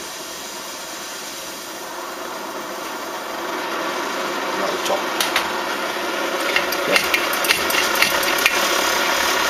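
Primus paraffin stove's roarer burner running with a steady roar that grows louder as it comes up to pressure. From about five seconds in, a run of sharp clicks and knocks as hands work at the brass stove.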